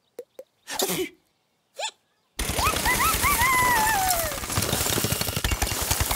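Cartoon sound effects: a few small clicks and two short scuffles, then, suddenly, a loud rumbling clatter of a rockslide with dense rapid impacts. Over its start the cartoon hen cries out in a few short rising yelps and then a long falling wail as she tumbles down.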